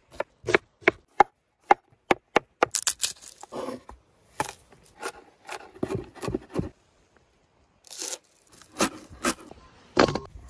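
A large knife chopping onion and garlic on a wooden cutting board: a run of sharp, evenly spaced chops at first, then quicker, crunchier chopping. Near the end come a few louder knocks as the raw chicken is handled.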